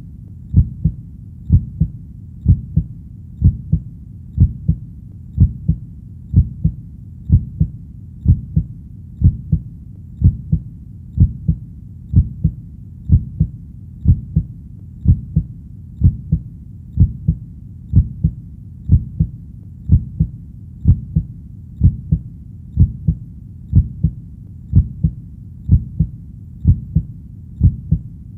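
Heartbeat sound: a steady lub-dub double thump about once a second, low and dull, over a faint low background rumble.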